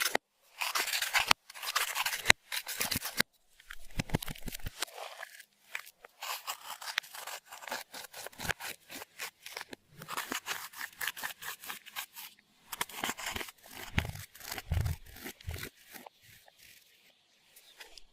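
Slime being worked by hand, giving off dense, irregular bursts of small crackling pops and clicks, with short pauses between handfuls.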